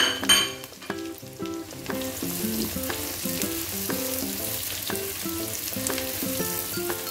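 Sliced onions sizzling as they fry in hot oil, being browned, and stirred in the pan; the sizzle grows stronger about two seconds in. A sharp clatter comes just after the start, and soft background music with a stepping melody plays throughout.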